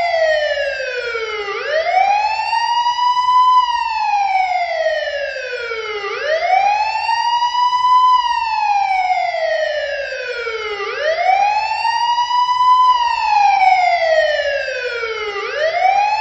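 Police car siren on a wail, a pitch that sweeps up over about two seconds and falls back over about two and a half, repeating steadily three to four times.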